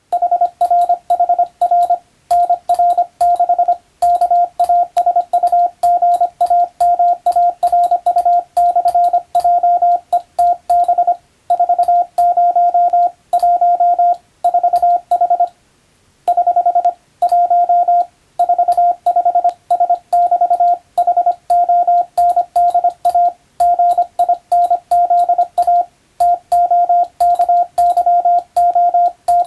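Morse code practice signal: a single steady beep tone keyed on and off in dots and dashes, sending English telegram practice text. Each element starts and stops with a faint click, and short pauses fall between character groups.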